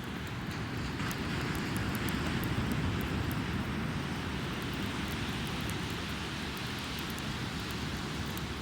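Strong sea wind buffeting the microphone: a steady low rumble with a rushing hiss over it, and scattered faint sharp ticks throughout.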